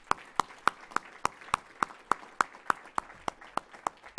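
One person clapping close to a podium microphone, steady at about three and a half claps a second, over the general applause of an audience.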